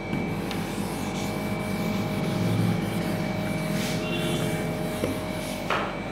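Whiteboard being wiped clean with a hand-held duster: a continuous dry rubbing as the eraser is scrubbed across the board's surface.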